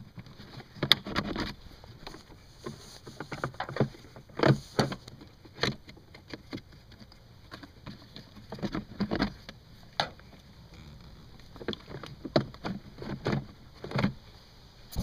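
Scattered plastic clicks, knocks and scrapes as a screwdriver works the plastic cowl cover below a Mercedes W202's windshield loose from its clips, some clicks sharp and loud, at irregular intervals.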